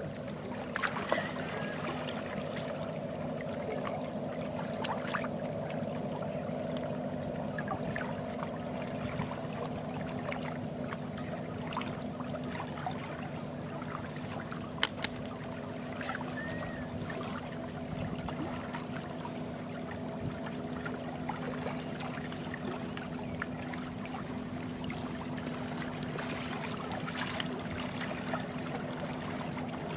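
Sea water lapping and trickling at the shoreline, with scattered small clicks, over a steady low engine drone that holds one pitch throughout.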